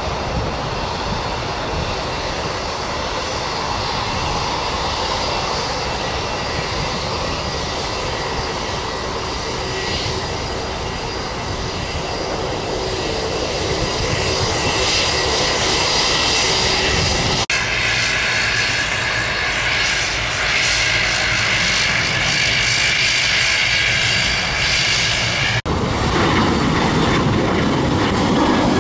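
Jet airliner engines running, a steady rushing roar with a high whine that grows louder just past the middle. The sound cuts abruptly twice, about two-thirds in and near the end, where it goes on to a Boeing 737 climbing out after takeoff.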